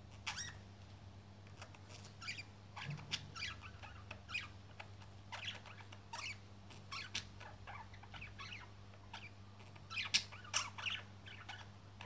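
Budgerigars giving short chirps and chattering notes at irregular intervals, with a louder cluster of chirps near the end, over a steady low hum.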